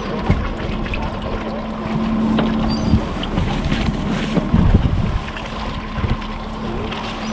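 Wind on the microphone aboard a small fishing boat, with a faint steady hum under it and a few dull knocks, the loudest about four and a half seconds in.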